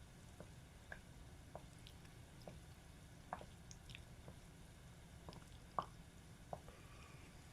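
Croquettes deep-frying in a tempura pot: faint, scattered pops and crackles from the hot oil, irregular, about one or two a second.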